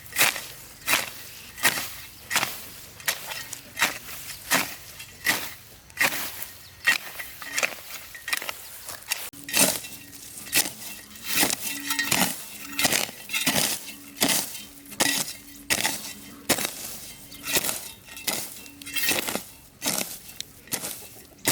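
A hand tool striking over and over in a steady rhythm, about three strikes every two seconds, each a sharp hit with a slight clink.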